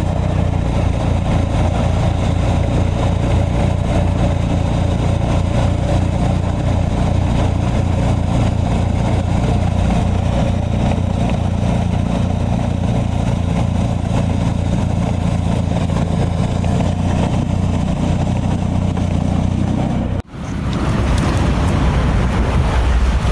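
Small engine of a snow-clearing machine running steadily under load as it cuts through deep snow, a constant pulsing drone. About twenty seconds in, the sound cuts off abruptly and a deeper-sounding machine engine takes over.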